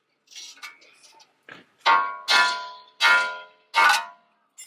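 A few light metal clicks, then four hard hammer blows on steel in quick succession, each ringing out with a metallic clang as the long rack-and-pinion mounting bolt is knocked loose.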